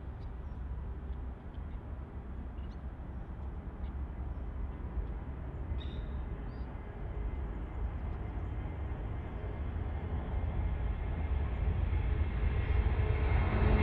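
Boeing 787-10 jet engines at takeoff power during the takeoff roll and lift-off: a deep, steady jet rumble that grows louder as the airliner approaches, swelling most near the end.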